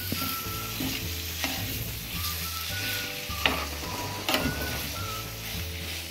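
Mutton liver pieces sizzling in masala on a hot tawa, stirred with a spatula that scrapes and knocks against the pan three times.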